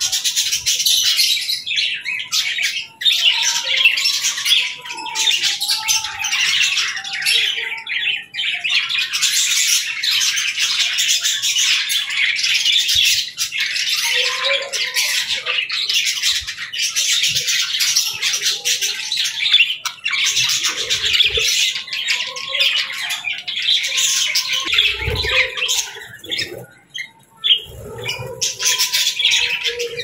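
A colony of budgerigars chattering and chirping in a dense, continuous warble. The chatter thins out briefly near the end, where a few low thumps come through.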